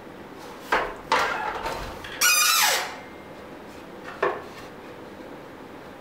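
Porter-Cable miter saw being swung to a new angle with the motor off: a few sharp clunks of the table and its lock, and a half-second metal scrape falling in pitch as the turntable slides round, a little over two seconds in.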